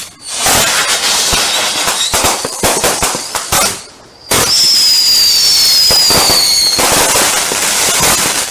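Fireworks going off: a rapid run of sharp cracks and bangs, a short lull about four seconds in, then dense continuous crackling with a high whistle that falls slightly in pitch for about two seconds.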